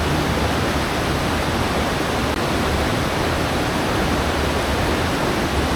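Waterfall and fast river water rushing steadily close by, an even, unbroken noise.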